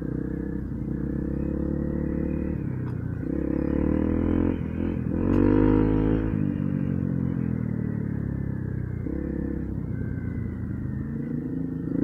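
Motorcycle engine running under way. The revs climb from about three seconds in to the loudest point around the middle, drop back, then climb again near the end.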